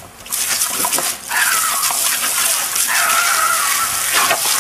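A jet of water spraying with a steady hiss while a German Shepherd snaps at it, giving two drawn-out vocal sounds, the second one longer.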